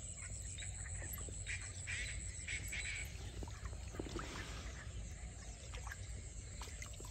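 Faint outdoor ambience: a low steady rumble with scattered short bird calls.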